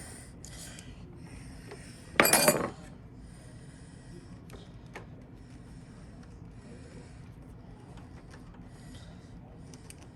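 Needle-nose pliers working the push-on spade terminals off an HVAC run capacitor: small metal clicks and rubbing, with one loud, harsh scrape about two seconds in as a terminal is worked free.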